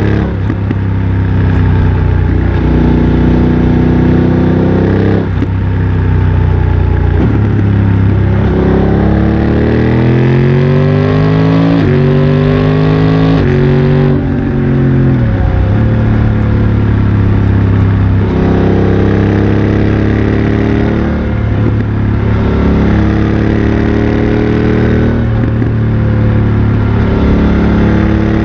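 BMW F900 XR's parallel-twin engine through a MIVV X-M1 aftermarket exhaust while riding. The engine note climbs in pitch through several quick gear changes about halfway, falls as the bike slows, then settles into a steady cruise.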